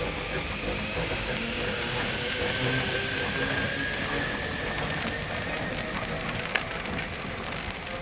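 A Mariazellerbahn class 1099 electric locomotive pulls away slowly, its motors giving a faint, slightly rising whine. Over it come fine crackles and one sharp snap about six and a half seconds in, from the bow pantograph arcing against the frosted contact wire.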